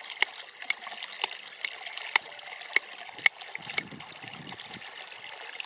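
A kitchen knife scraping scales off a whole fish laid on a wooden log: sharp scraping strokes about twice a second that stop after about four seconds.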